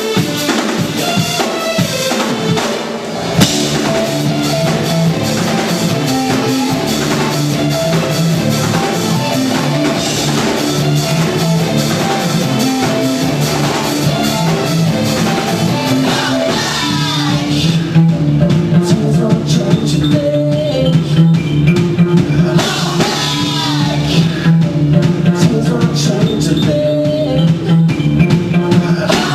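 Live band playing amplified music: a drum kit with kick and snare hits under held pitched instrument notes, growing louder and busier about two-thirds of the way through.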